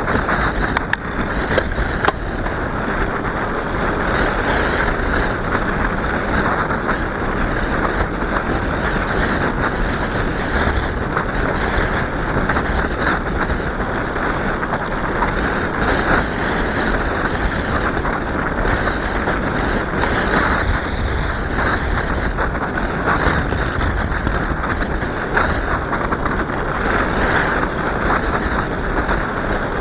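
Steady rushing noise of a bicycle ride, tyres on pavement and air moving past the microphone, with a few sharp clicks about a second or two in.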